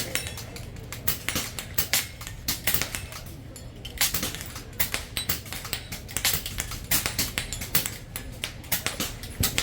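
Air rifles firing in quick, irregular succession: many sharp cracks, several a second, with no steady rhythm.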